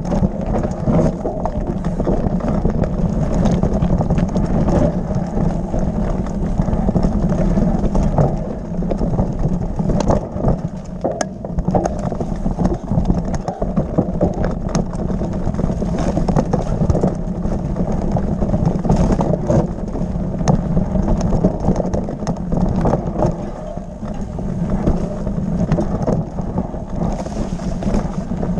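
Mountain bike riding down a rocky dirt trail: a steady loud rumble of tyre and wind noise on the camera's microphone, with frequent sharp clicks and knocks as the bike rattles over stones.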